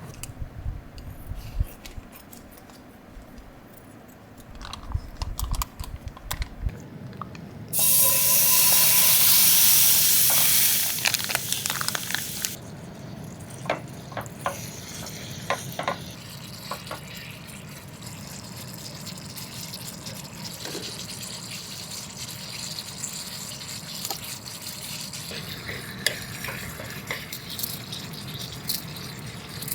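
Water running: a loud rush of water starts about eight seconds in and cuts off sharply some four seconds later, over a steady background of flowing water, with scattered clicks and knocks of things being handled.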